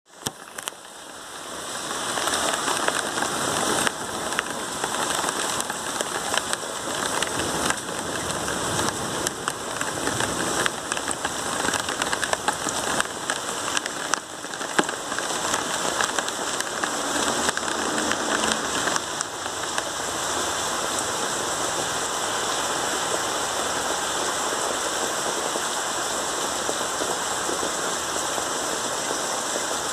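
Thunderstorm rain falling steadily, with many sharp single drop hits standing out from the wash. It fades in over the first two seconds.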